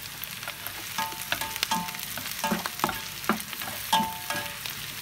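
Diced onions and spring onion sizzling in hot oil in a pan while a plastic spatula stirs them, knocking and scraping against the pan about twice a second from about a second in, some knocks leaving a brief ring from the pan.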